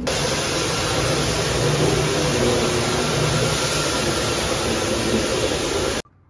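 Steady, loud rushing noise that cuts off suddenly about six seconds in.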